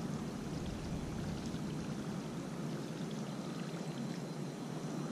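Whopper Plopper 60 topwater lure being reeled across still pond water, its rotating tail churning the surface with a steady watery splashing.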